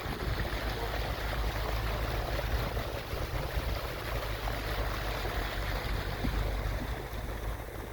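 Steady rushing water noise of a vehicle driving across a flooded salt flat, with a low fluttering rumble of wind on the microphone.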